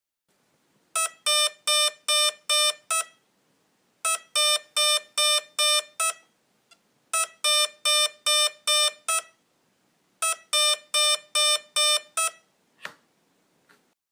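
Hitec Energy Sport brushless ESC sounding its programming tones: four groups of short, evenly spaced beeps, about three seconds apart. This pattern marks the High (3.2 V/65%) low-voltage cut-off setting. A single click follows near the end.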